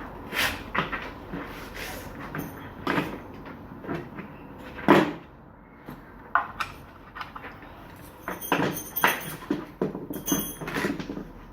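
Metal hand tools and motorbike parts clinking and knocking irregularly as the bike is taken apart, with the loudest knock about five seconds in and a quick run of ringing clanks near the end.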